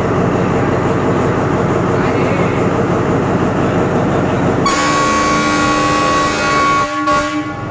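Steady low rumble, then about two-thirds of the way in a loud train horn blast from a departing State Railway of Thailand diesel locomotive, sounding several tones at once for about three seconds.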